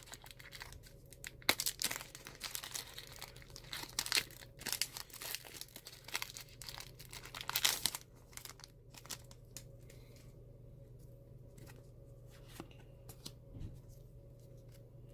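Pokémon booster pack wrapper being crinkled and torn open by hand, with dense crackling and rustling for the first half, then only a few scattered faint handling ticks.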